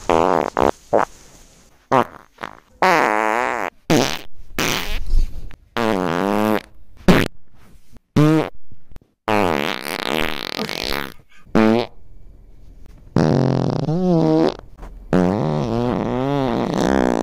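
A series of farts: short blips and longer drawn-out, rasping ones whose pitch wavers. They are separated by abrupt cuts to silence.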